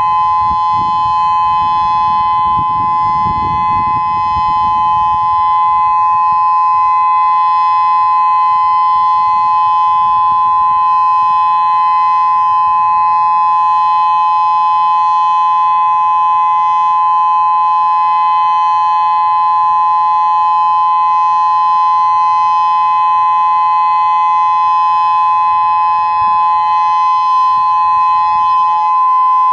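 Federal Signal Modulator 4016 electronic outdoor warning siren sounding its steady Alert signal in standard dual tone: two close, unchanging tones held without a break, loud.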